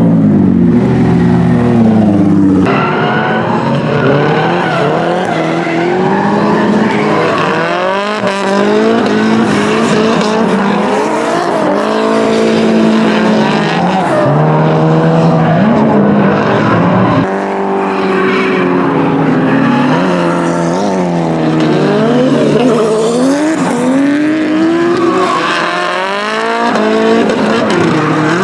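Nissan S-chassis drift cars running in tandem, their engines revving up and down again and again as they slide, with tyre squeal.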